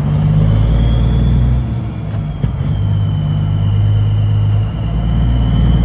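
Truck engine droning at road speed with tyre and road rumble, heard from inside the cab, with a thin steady high whine over it. The low engine note dips and shifts about two seconds in, then runs on steadily.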